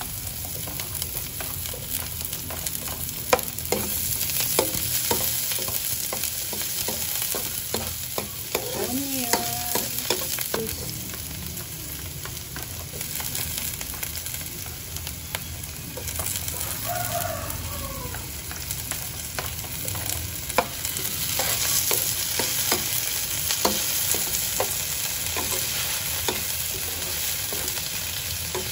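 Garlic and onions sautéing in hot oil in a pan, sizzling steadily, while a utensil stirs them and clicks and scrapes against the pan at irregular moments.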